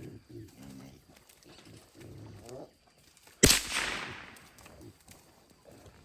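Wild hogs grunting, then a single .22 Long Rifle shot about three and a half seconds in, the loudest sound, its crack trailing off over about a second.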